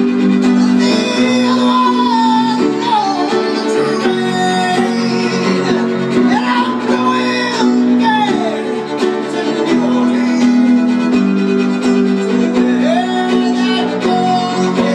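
Violin and piano playing live: the violin plays a solo line with sliding notes over steady accompaniment.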